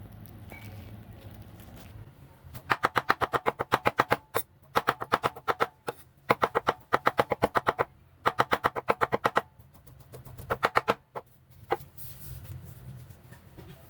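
Rapid, evenly spaced knocks of a kitchen utensil, about eight a second, in five bursts with short pauses between them, followed by one last single knock.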